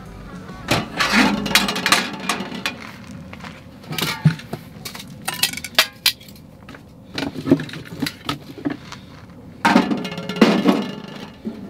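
Irregular metallic clinks and knocks of camping gear being handled, with a butane gas canister being fitted.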